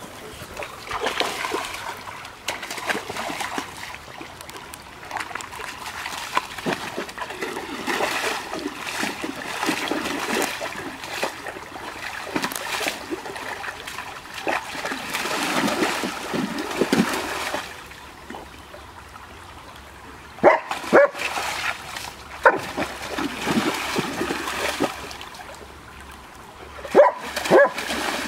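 German Shepherd splashing about in a shallow stream, legs and muzzle churning the water in irregular splashes. It gives a few short barks about twenty seconds in and again near the end.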